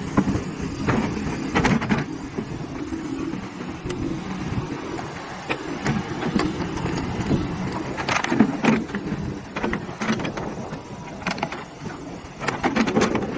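LiuGong crawler excavator's diesel engine running under load while the boom and bucket are worked, with a few short knocks here and there.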